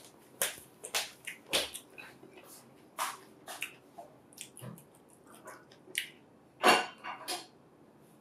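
Close-up eating noises from a plate of pad thai: chewing, lip smacks and the click of wooden chopsticks, coming as scattered short sounds, the loudest about two-thirds of the way in.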